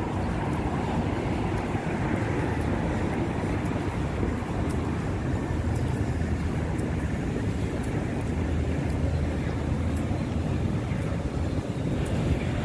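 Steady low rumble of city traffic, with faint clicks now and then.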